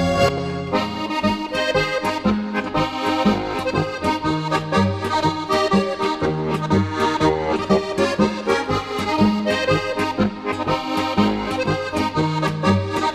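Traditional Bavarian folk music led by a button accordion playing a lively tune over steady, alternating bass notes.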